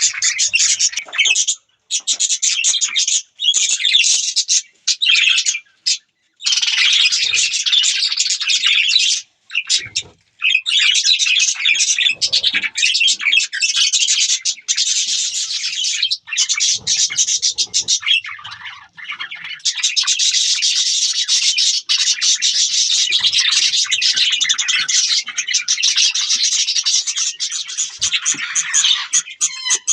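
Budgerigars chirping and chattering almost continuously, with a few short breaks.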